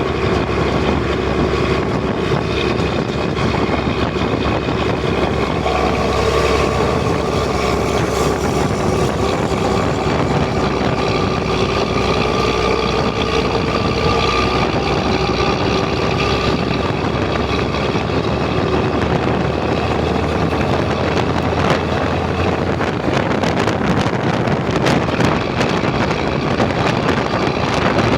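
Volvo B10M bus's straight-six diesel engine running with a steady, loud drone.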